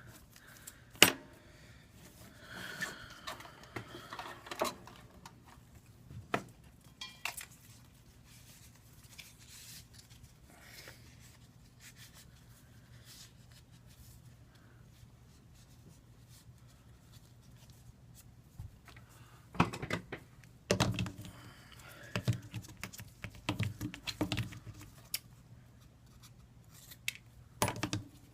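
Small repair tools and parts being handled on an iPad 2 under repair: scattered clicks, taps and short scrapes, with a sharp click about a second in and a busier run of handling noises in the second half, over a faint steady low hum.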